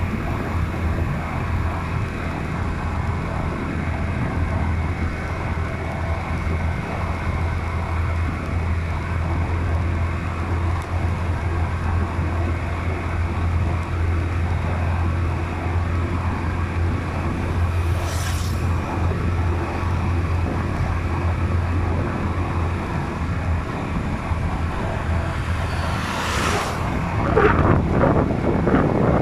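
Steady low drone of a vehicle travelling along a road, with wind noise on the microphone. A brief rushing swell comes about 18 seconds in, and a louder one shortly before the end.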